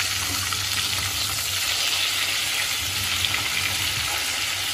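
Chicken pieces deep-frying in a pot of hot oil: a steady, even sizzle.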